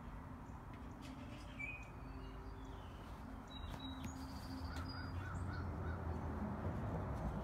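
Outdoor ambience of birds calling: scattered short chirps, with a run of about five quick repeated notes in the middle. A steady low rumble runs underneath.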